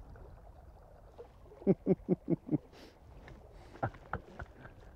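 Faint, steady flow of river water around a wading angler, with a quick run of about five short sounds a little under two seconds in and a few more short ones about a second later.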